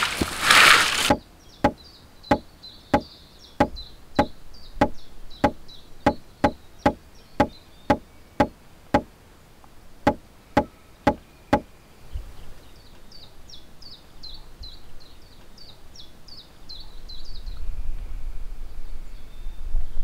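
Branches crashing onto a brush pile in the first second, then a wooden stake being pounded into the ground: about twenty sharp knocks, a little under two a second, stopping about eleven and a half seconds in. Birds chirp in the background.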